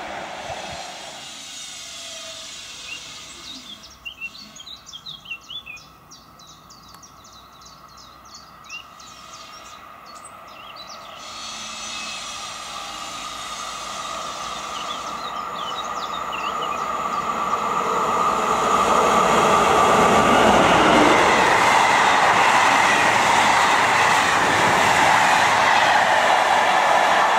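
Czech Railways class 362 electric locomotive and its passenger coaches approaching and passing close by; the sound of the wheels on the rails builds over several seconds and is loud through the last third. A few seconds in, before the train is close, there is a run of short high chirps.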